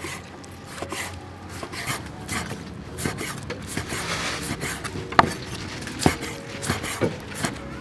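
Cleaver slicing honeycomb beef tripe on a wooden chopping board: the blade knocks on the wood with each cut, roughly one or two strokes a second, with a rasping scrape of the blade through the tripe. The loudest knock comes about five seconds in.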